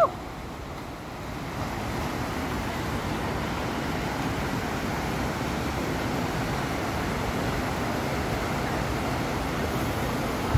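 Whitewater rapids of a river rushing steadily.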